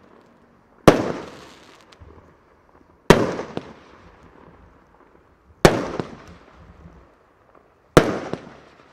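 Weco Shock Attack (The Core) 25 mm, 35-shot firework battery firing: four heavy bangs about two to two and a half seconds apart, each dying away in a long echo.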